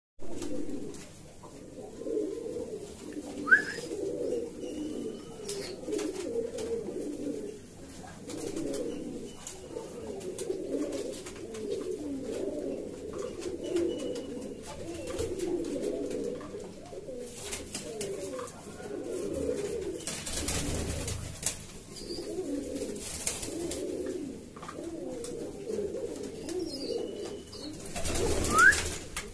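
Domestic pigeons, fantails among them, cooing in a steady, overlapping stream. Two short rising squeaks come about three seconds in and near the end, and brief rushes of noise come around twenty seconds in and again near the end.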